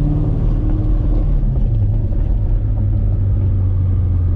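Chevrolet Corvette C7 Z06's supercharged 6.2-litre V8 running at low speed, a steady low rumble. Its pitch drops between one and two seconds in, then holds.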